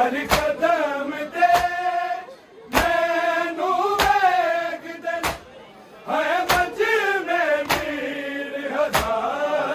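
Male voices chanting a noha, the Shia lament, over rhythmic matam chest-beating: hands strike the chest in unison about once every second and a quarter, eight strikes in all.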